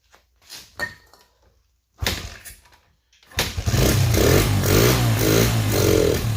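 A 1996 Honda XR100R's small single-cylinder four-stroke engine being started: it fires once about two seconds in and dies away, then catches a moment later and runs loudly with the revs rising and falling. It is running poorly and about to stall, which the owners put down to fuel not getting through the freshly cleaned carburetor.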